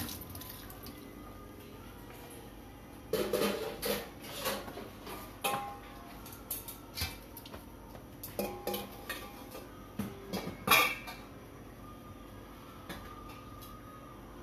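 Kitchenware being handled out of sight: a scatter of clinks and knocks of dishes, pots and utensils from about three seconds in, the sharpest one a little before the end.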